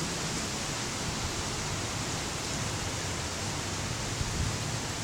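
Windstorm: a steady rush of wind and driving rain, with wind rumbling and buffeting on the microphone.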